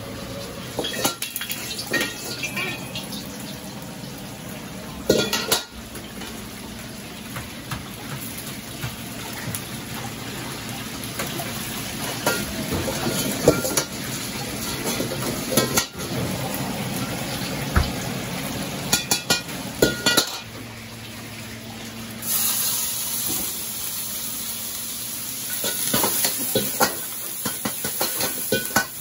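Steel ladle clanking and scraping in a wok, with scattered sharp metal clanks. About 22 seconds in, a loud sizzle starts as meat hits the hot oil, and the ladle strokes go on over it.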